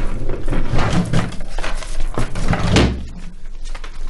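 Handling noise at a wooden desk: a string of knocks, clatter and paper rustling as things on and in the desk are moved and a sheaf of papers is picked up, dying down about three seconds in.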